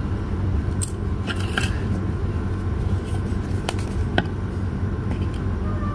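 A few light clicks and taps of a plastic bottle being picked up and turned in the hand, over a steady low background hum.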